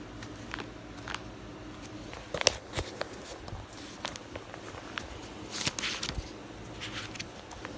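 A paperback comic book being handled close to a phone's microphone: scattered clicks and taps, one sharp knock about two and a half seconds in, and a short papery rustle near six seconds, over a faint steady hum.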